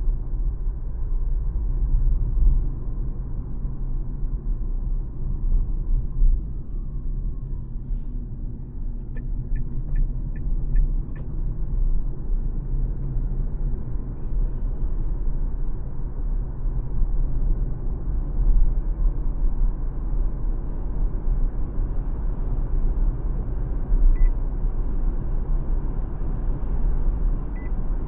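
Steady low road and tyre rumble from the 2024 Dacia Spring, an electric car, heard from inside the cabin while driving, with no engine note. About ten seconds in come five short, evenly spaced ticks.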